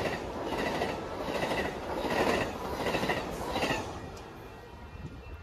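Amtrak Pacific Surfliner passenger cars rolling past, with a rhythmic clicking about two to three times a second over a steady rumble. The sound fades away about four seconds in as the last car clears.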